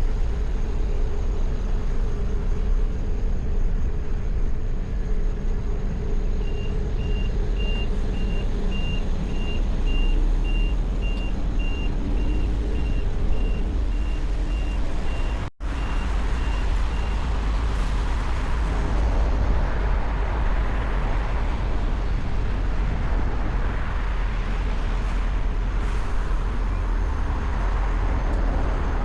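Steady city road-traffic noise with a heavy low rumble. From about six seconds in until past the middle, a string of short, high, evenly spaced beeps runs over it, about two or three a second. Near the middle the sound drops out for an instant.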